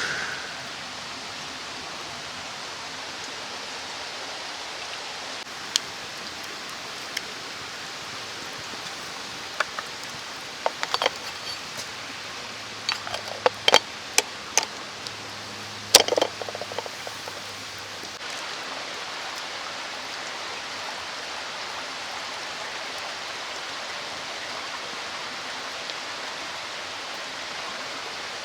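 Steady rushing of a mountain stream, with scattered sharp clicks and knocks in the middle stretch.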